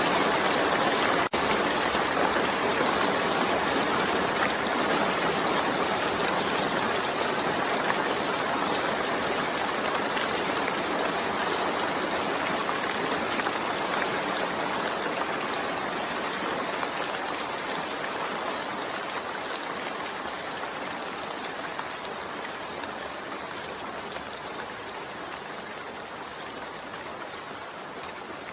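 Steady rain, an even hiss of falling water, slowly fading out, with a brief dropout about a second in.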